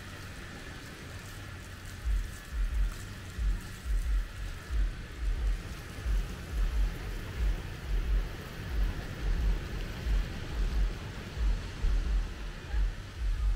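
Footfalls of someone walking with a handheld camera, heard as regular low thuds about one and a half to two a second, starting about two seconds in. Underneath is a steady hiss with a faint high hum.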